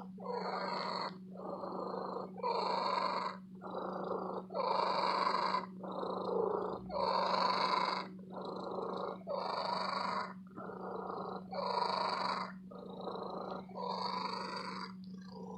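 Domestic cat purring loudly, the rumble swelling and breaking off with each breath in and out, about once a second.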